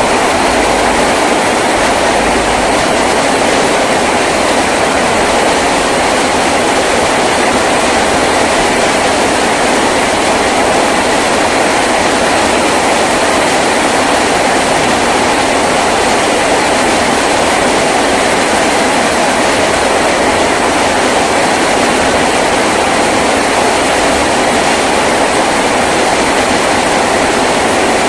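Heavy rain falling steadily on a tin roof, a dense, even hiss and patter with no let-up.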